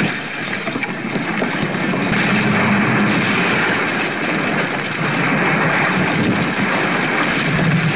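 Film sound of sea water churning and splashing around a wooden fishing boat, over a steady low rumble.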